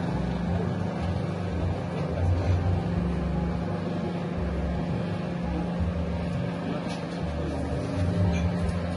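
Dough mixer machine running, its motor giving a steady low hum with an uneven rumble underneath.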